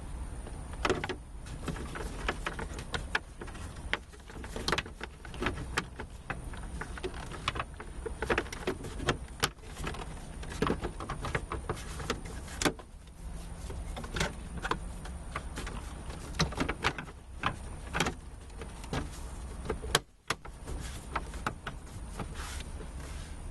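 Plastic dashboard trim and parts being handled and fitted back in place inside a car: many irregular clicks, knocks and rattles over a steady low hum.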